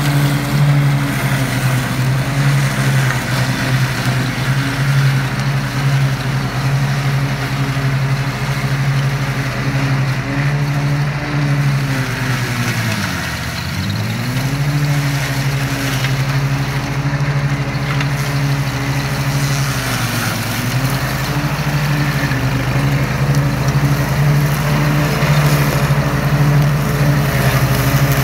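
Ride-on lawn mower engine running steadily as its blades cut into a pile of blackberry bramble. About halfway through, the engine note dips sharply and climbs back as it bogs under the load of the thick canes, and it dips again, less deeply, about two-thirds through.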